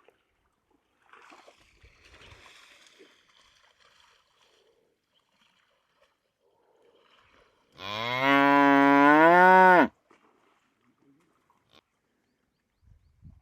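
A buffalo mooing once, a single call of about two seconds past the middle whose pitch rises partway through. Faint rustling comes before it.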